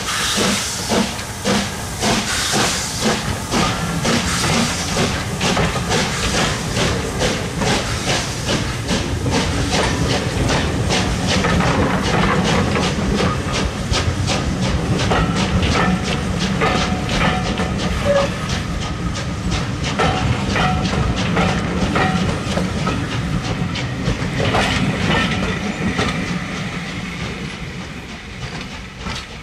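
LMS Black Five 4-6-0 steam locomotive pulling away with its cylinder drain cocks hissing and its exhaust beating, then its coaches rolling past with wheels clicking in a steady rhythm over the rail joints. The sound fades near the end as the train draws away.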